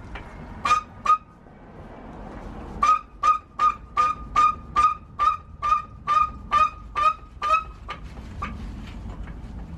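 Harbor Freight floor jack squeaking with each pump of its handle as it lifts the car: two squeaks, then a steady run of about a dozen, a little over two a second, dying away near the end.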